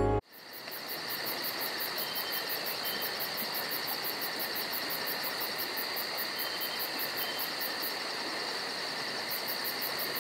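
Crickets chirping in a fast, even rhythm of about five chirps a second over a steady hiss, cutting in abruptly as a song stops just after the start.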